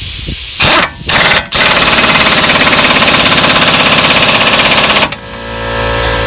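Impact wrench tightening a front axle nut: two short bursts, then a rapid hammering run of about three and a half seconds that stops abruptly, followed by a steady hum.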